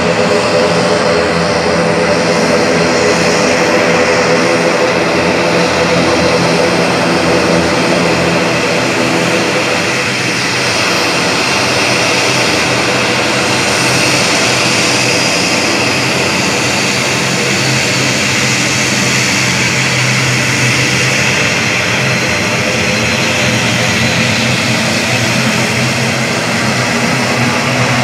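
ATR twin-turboprop airliner taxiing, its two Pratt & Whitney turboprop engines and propellers running steadily at low power. There is a low propeller drone under a high turbine whine.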